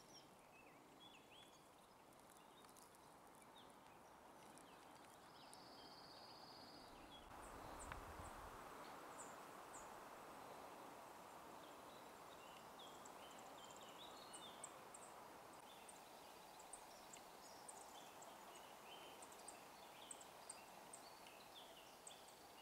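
Near silence of open countryside: a faint hiss with scattered distant bird chirps and one high trill about six seconds in.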